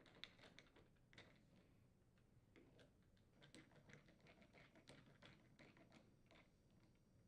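Faint, scattered light clicks and taps of a 1/8-inch Allen wrench working the set screws as the freezer door handle is tightened onto its mounting studs.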